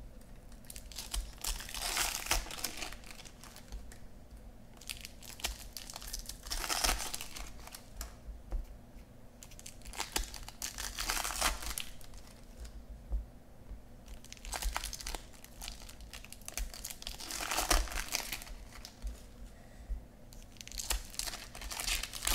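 Topps Chrome baseball card packs being torn open and their wrappers crinkled by hand, in about six separate bouts of crackling a few seconds apart.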